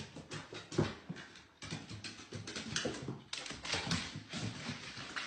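A small dog's claws and paws tapping quickly on hardwood stairs as it scrambles up them, a rapid run of clicks with a couple of sudden jumps in loudness.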